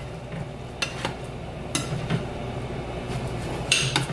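Knife clicking a few times against a cutting board as a cooked pork tenderloin is sliced, the loudest click near the end, over a steady sizzle of frying.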